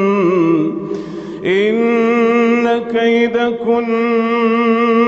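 A man reciting the Quran in slow, melodic tajwid style, drawing out long ornamented notes. The voice breaks off briefly about a second in, then holds one long, steady note.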